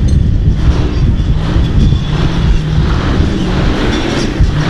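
Off-road competition truck's engine running, a loud, steady low rumble.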